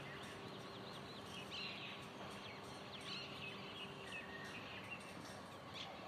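Small birds chirping and twittering in short, quick calls over steady background noise, with a low steady hum that fades out near the end.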